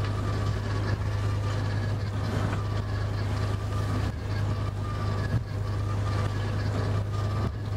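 Boat engine running with a steady low drone, heard from inside the wheelhouse, briefly dipping a couple of times as the boat works through a choppy sea, with a noisy wash of spray over the windscreen.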